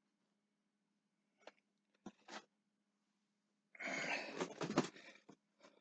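A few soft clicks, then a loud burst of rustling and crackling lasting about a second and a half as packaging is handled close to the microphone. A faint steady hum sits underneath.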